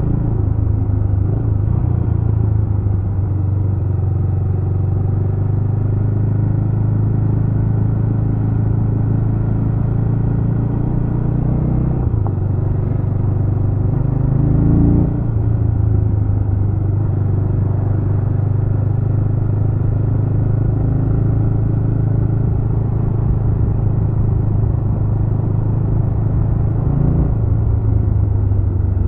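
Jawa RetroTrail 650 motorcycle engine running steadily under way. Its pitch dips and rises again about halfway through as the revs change, with a smaller change near the end.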